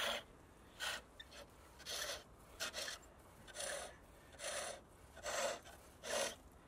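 Skew chisel cutting a V-groove into a green-wood dibber spinning on a treadle pole lathe: a short scraping rasp on each down-stroke of the foot, a little more than one a second, with quiet between strokes as the wood turns back.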